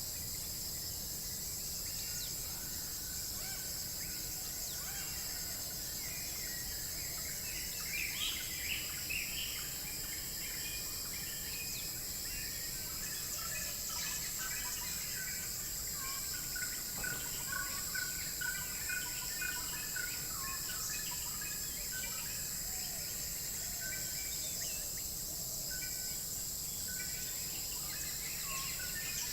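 Outdoor ambience of steady high-pitched insect drone with scattered short bird chirps throughout, the chirps busier about eight seconds in and again from about the middle on.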